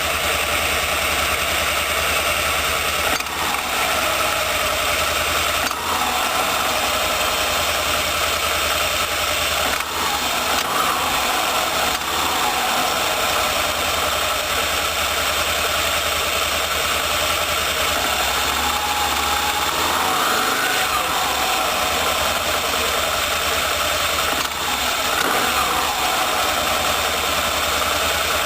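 A GP800's engine running steadily, its pitch dipping and rising again several times, with a few short knocks.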